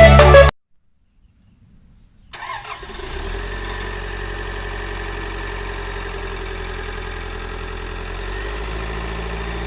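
Background music cuts off about half a second in; after a short silence, a Hitachi excavator's diesel engine comes in, running steadily.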